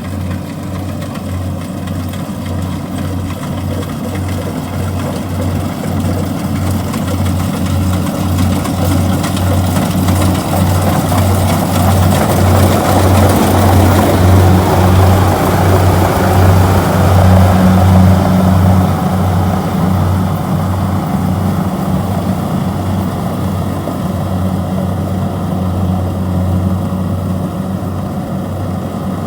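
Kubota DC-70G combine harvester's diesel engine running steadily with a low, pulsing hum, growing louder about a third of the way in and easing back after about two-thirds.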